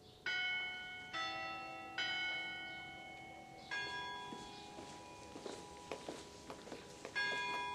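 Church bells chiming: five strokes on bells of different notes, the first three in quick succession and the last two more widely spaced. Each stroke rings out and slowly fades.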